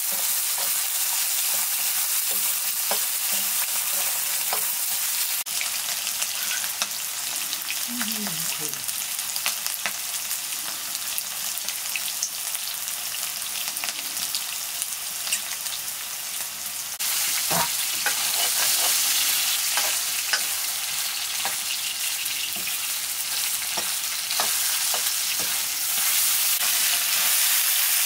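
Potatoes frying in oil in an iron kadai over a wood fire: a steady sizzle with scattered small crackles, and one sharp knock about two-thirds of the way through.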